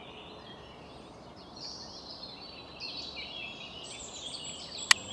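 Faint birds chirping over quiet background noise, with a single sharp click near the end.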